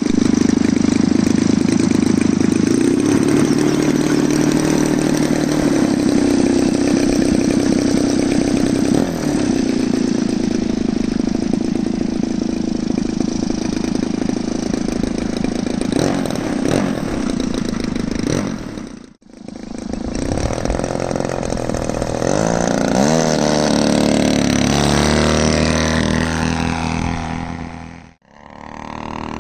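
GP123 engine of a 2.2 m SebArt Miss Ultimate model biplane running, its pitch stepping and gliding up and down with the throttle as the plane taxis and takes off. The sound cuts out briefly twice in the second half.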